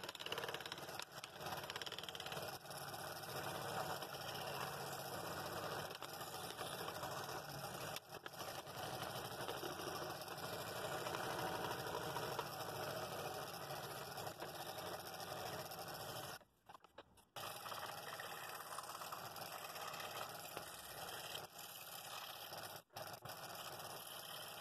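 Scroll saw running steadily, its fine blade cutting through hardwood: the oak cat pieces, then thin walnut. The sound drops out abruptly for about a second two-thirds of the way in.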